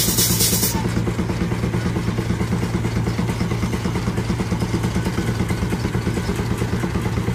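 A.D. Baker steam traction engine working under load, its exhaust chuffing in a fast, even beat over a steady low hum of the belted threshing machinery. A loud high hiss cuts off less than a second in.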